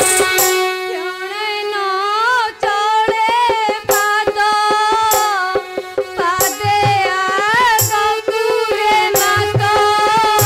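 Live Odia folk-theatre music: a solo voice sings a winding melody over a steady held drone, with drum strokes coming in during the second half.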